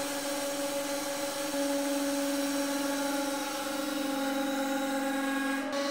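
Hydraulic press's pump motor running with a steady, even-pitched hum and whine while the ram builds up load. The hum gets slightly louder about a second and a half in.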